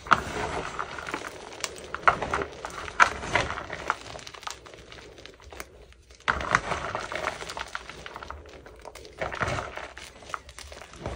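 Hands squeezing and crushing crumbly lumps of gym chalk set with fabric softener, a dense crunching and crackling. It has a short lull about halfway through, then the crunching resumes.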